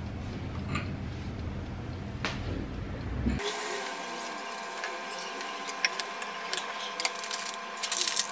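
Saucepan of water heating on an electric hob: a low rumble for the first three seconds, then, after an abrupt change, the water at a rolling boil with scattered pops and clicks over a steady hum.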